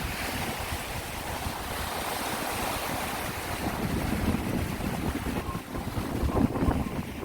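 Sea waves washing ashore with wind buffeting the microphone, a steady rushing surge with a deep rumble underneath.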